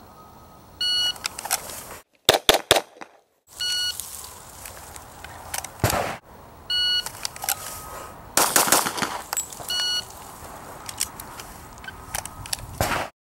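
Electronic shot-timer beeps, each followed by quick strings of pistol shots, repeated several times; the loudest is a rapid run of three shots about two seconds in.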